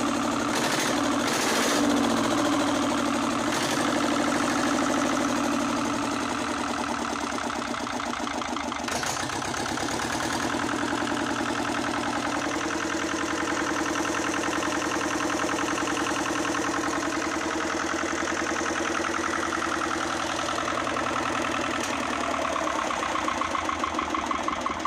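1979 Lister ST2 two-cylinder air-cooled diesel engine running steadily on its own, freshly bled and brought back to life. It is a little louder for the first few seconds, then settles into an even, regular run, "like a watch".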